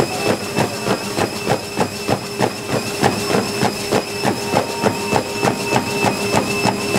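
Fast running footfalls pounding a treadmill belt, about three strides a second, over the steady whine of the treadmill's motor, at a 17 km/h interval pace.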